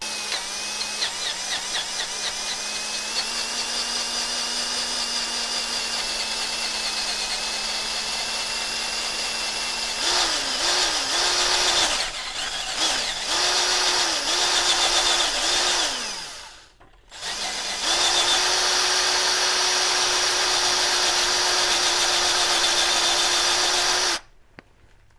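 Cordless drill running as its bit enlarges a broken-stud hole in a cast iron exhaust manifold flange. It runs steadily for about ten seconds, then at a higher pitch, slowing and stopping several times. After a short pause it runs steadily again and stops shortly before the end.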